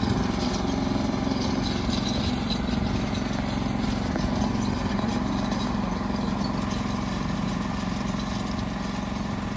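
A tractor engine running steadily at an even pitch.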